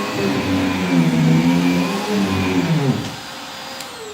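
Riccar Tandem Air R40 upright vacuum cleaner running loudly, its motor pitch wavering and dipping as it works, then switched off with a click near the end, the motor whine falling away as it spins down.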